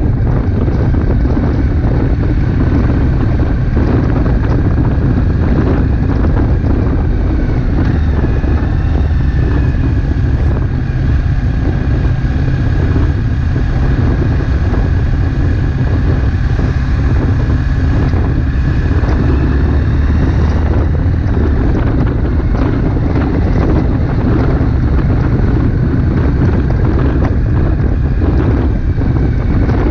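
A Triumph Street Twin 900's parallel-twin engine running under way at a steady town speed. Heavy wind buffeting on the microphone lies over it.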